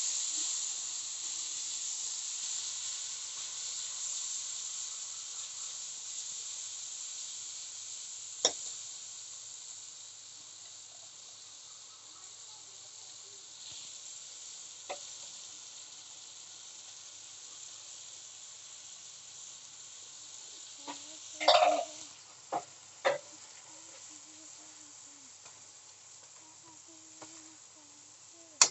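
Tomato and green-chilli masala sizzling in hot oil in a metal kadhai, the sizzle slowly dying down as it cooks. A metal ladle knocks against the pan a few times, a cluster of clinks coming about two-thirds of the way in.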